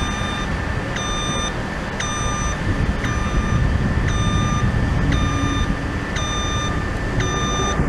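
Reversing alarm on demolition plant beeping about once a second, each beep short and even, over a steady low rumble of machinery.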